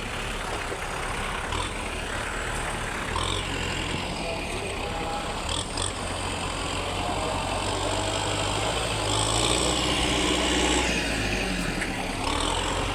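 Motor vehicle engine running steadily with a low hum, getting somewhat louder around nine seconds in.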